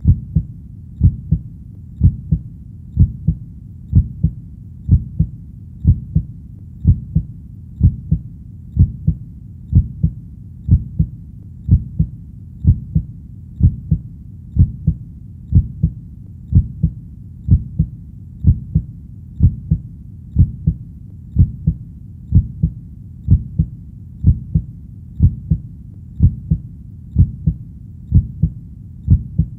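Heartbeat: a steady, low double thump (lub-dub) repeating about once a second.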